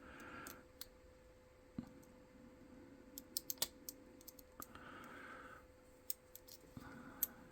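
Faint, irregular clicks and ticks of a lock pick and tension tool working the pin stack inside a Master Lock 570 padlock, with a quick run of sharper clicks about three and a half seconds in.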